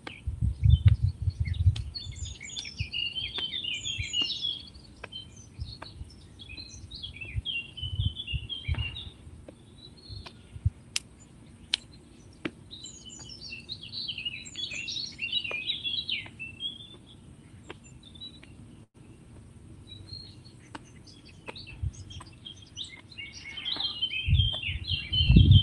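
Wild birds chirping and singing in quick clusters of short notes, in several spells. Low dull thumps of hands patting the body through a fleece come at the start, about eight seconds in and near the end.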